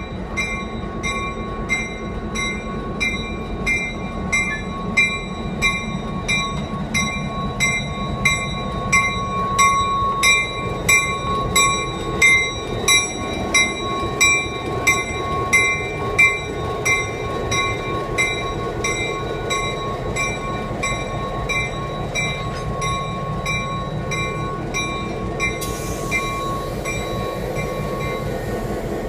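A bell ringing steadily at about one and a half strikes a second over the running engine of an EMD SD9 diesel locomotive as it backs up; the bell stops near the end while the engine runs on.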